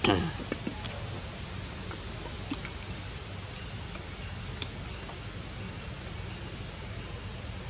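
Steady outdoor background noise with a few faint ticks scattered through it. Right at the start, a short loud squeal slides quickly down in pitch.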